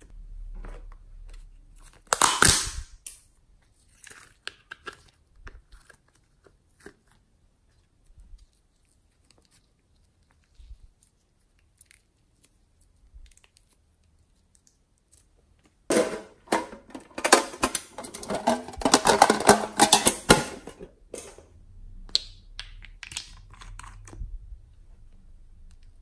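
Hands squishing and pulling soft slime, giving sticky crackling and popping. There is one loud burst about two seconds in and a longer run of dense crackles past the middle, with faint ticks between.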